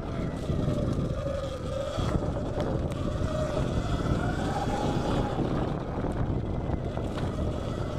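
Sur-Ron Light Bee X electric dirt bike ridden fast on a dirt trail: the motor's whine rises and falls with the throttle, over heavy wind noise on the microphone.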